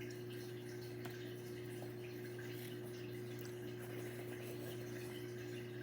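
Dishwasher running: a steady motor hum with water washing through it.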